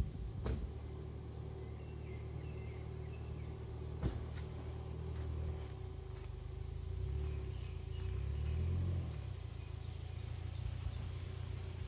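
A steady, low engine-like rumble, swelling twice in the second half, with a single click about four seconds in and a few faint bird chirps above it.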